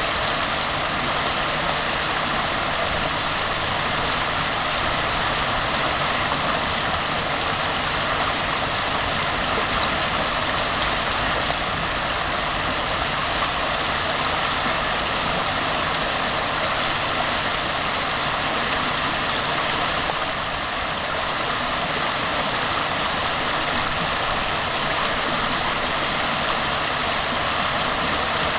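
A shallow rocky stream running over riffles: a steady, unbroken rush of water.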